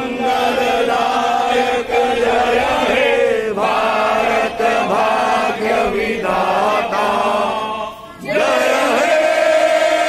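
A group of adults and children singing together in unison, the long held notes broken by brief breath pauses about three and a half and eight seconds in.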